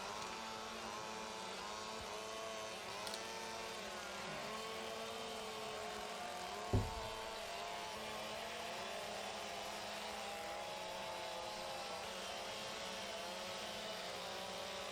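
Several chainsaws running at once, their engines revving up and down as they cut, with one short thump about seven seconds in.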